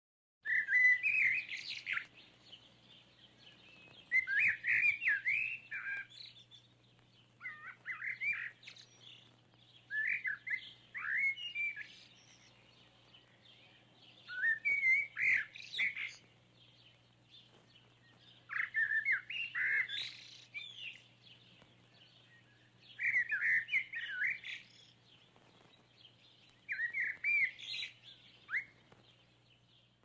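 A songbird singing short warbled phrases, about eight of them, each a second or two long with a pause of a few seconds between, over a faint steady low hum.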